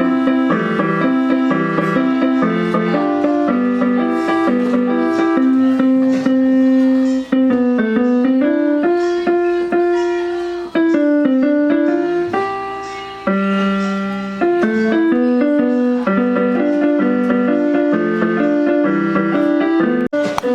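Electronic keyboard playing a slow melody over chords, a steady run of held notes with a few short breaks between phrases.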